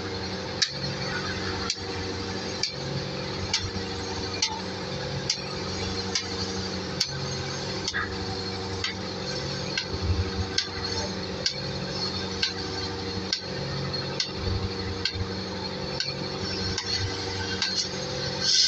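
A machine's steady hum with a sharp metallic tick about once a second, under a light hiss.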